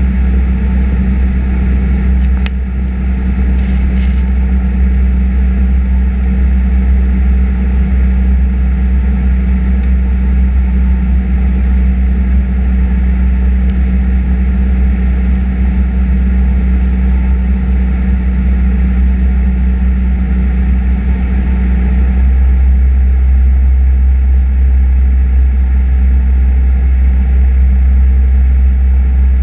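Piper PA-28 Cherokee's piston engine and propeller droning steadily, heard inside the cabin. A short click comes a couple of seconds in, and about three-quarters of the way through the tone shifts and gets a little louder.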